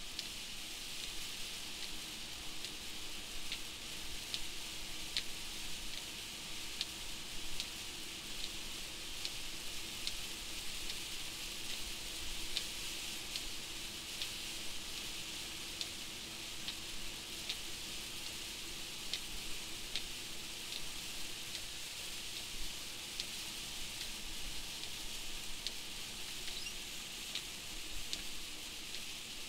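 Heavy rain on the windshield of a moving truck: a steady hiss with scattered sharp ticks of drops striking the glass, and a faint low hum underneath.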